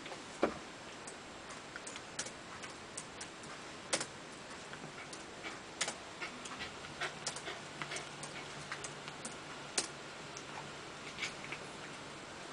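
Irregular light clicks and rustling as a hand rubs and scratches a small fluffy dog lying on its back on a bedspread.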